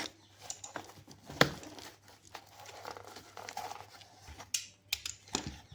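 Packaging being torn open and crinkled by hand, an irregular rustle with sharp clicks and snaps, the loudest about a second and a half in and several more near the end.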